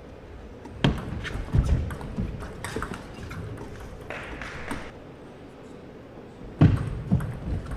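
Table tennis ball clicking off rubber paddles and the table in a short rally, with some deeper thuds mixed in. After a lull, a serve and its quick bounces start about a second before the end.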